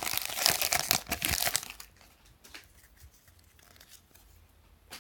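Plastic trading-card pack wrapper being torn open and crinkled, a dense crackling that stops about two seconds in, followed by quiet with a single small click near the end.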